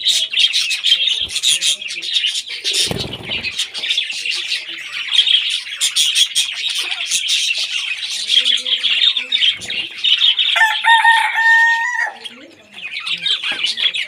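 A flock of budgerigars chattering and warbling nonstop. About ten and a half seconds in, a steadier, longer call is held for over a second, and there is a dull knock about three seconds in.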